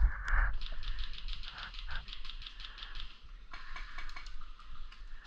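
Airsoft gunfire: a rapid, evenly spaced string of shots, about eight a second for roughly two and a half seconds, then a shorter burst near the end. A single loud knock comes right at the start.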